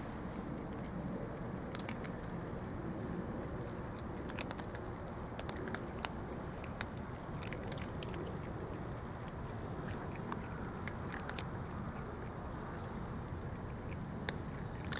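Cats crunching dry kibble: scattered sharp crunches over a steady low background rumble, with a faint high steady tone.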